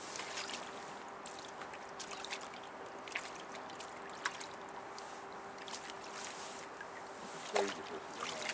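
River water flowing and lapping at the bank, a steady wash with scattered light clicks. A short pitched sound comes near the end.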